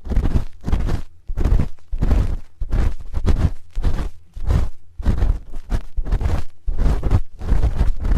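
Spoon rubbing and scraping in a microphone's ear for ASMR ear cleaning, close up. It comes in repeated rumbly strokes, about one and a half a second.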